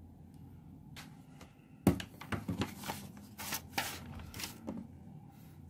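Handling noise as a calculator and a loose sheet of note paper are cleared off a textbook: a knock about two seconds in, then a run of paper rustles and scrapes.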